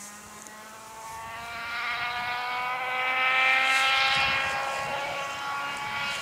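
Rally car engine accelerating hard, its pitch climbing steadily as it draws nearer and grows louder, loudest about halfway through.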